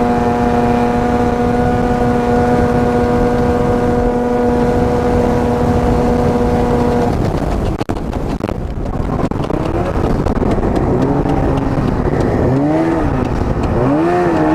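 Arctic Cat ZR 800 snowmobile's two-stroke engine held at wide-open throttle, a loud, steady high pitch for about seven seconds. Then the revs drop away with a brief dip, and for the rest the engine note rises and falls unevenly as the throttle is eased on and off.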